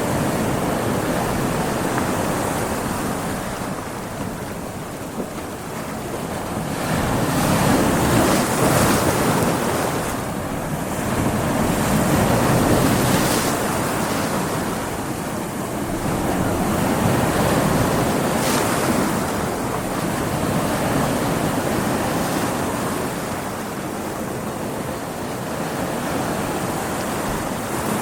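Stormy sea: heavy waves surging and breaking in slow swells every few seconds, with wind.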